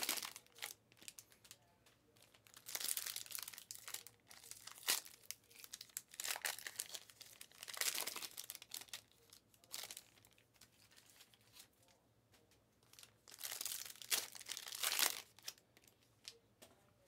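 Plastic packaging crinkling and rustling as it is handled, in short irregular bursts with quiet gaps between them, the longest stretch near the end.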